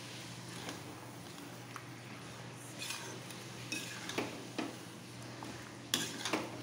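A perforated metal spatula scraping and clinking against a metal kadhai as chicken pieces are stirred through a thick masala. The strokes come irregularly, a few close together near the end.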